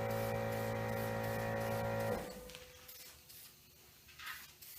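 Background music with long held notes that cuts off abruptly a little over two seconds in; after that it is much quieter, with a faint brief hiss near the end.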